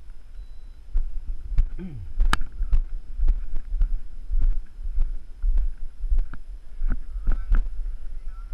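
Footsteps on a dirt and gravel field, about three steps every two seconds, starting about a second in, over a low rumble of wind buffeting the microphone.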